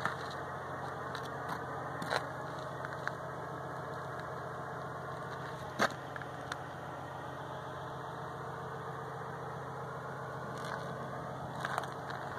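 A steady low mechanical hum, engine-like, with a few faint clicks and one sharp click about six seconds in.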